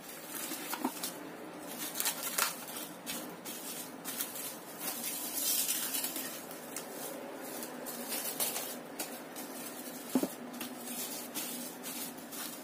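Plastic cling wrap crinkling and rustling as it is pulled from its box and pressed down over and around a round metal cake pan, with many small scattered crackles and a longer rustle about halfway through.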